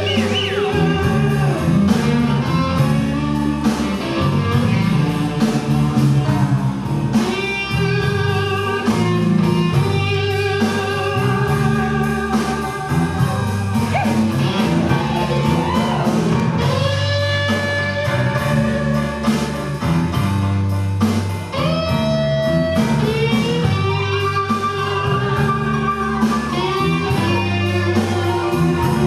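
Blues music with guitar leading over a bass line and a steady beat, the guitar bending notes up and down.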